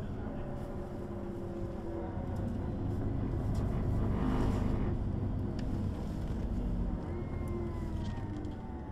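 Neoplan N 4416 city bus heard from on board: diesel engine and ZF gearbox running steadily. There is a brief rushing noise about halfway through and a thin whine falling in pitch near the end.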